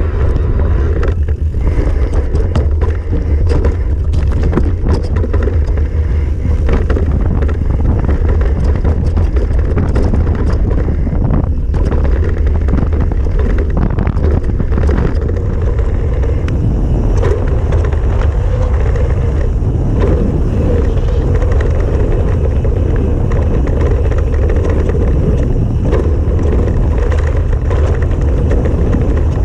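Wind blasting a mountain bike's fork-mounted action camera microphone during a fast trail descent, a deep steady rumble, with the bike's tyres and suspension rattling and knocking over the dirt. The knocks come most often in the first half, on the rougher section.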